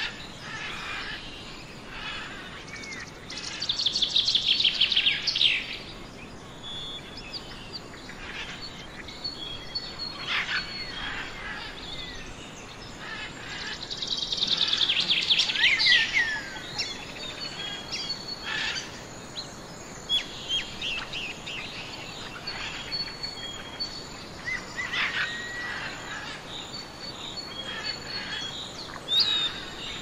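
Forest birds calling and chirping over a steady background hiss, with two louder stretches of rapid trilling, about four and about fifteen seconds in; the second ends in a few quick falling whistles.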